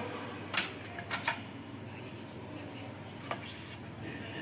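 Sharp metal clicks and clacks from parts being handled on a manual badminton stringing machine: a loud click about half a second in, two more just after a second, and a fainter one near the end.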